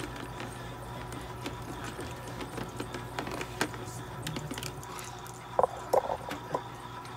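Small clicks and rustles of IV tubing and equipment being handled on a steel exam table, over a steady low hum, with a few sharper knocks about five and a half to six and a half seconds in.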